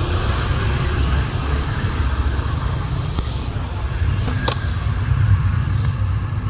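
Steady low rumbling background noise, with a single sharp click about four and a half seconds in.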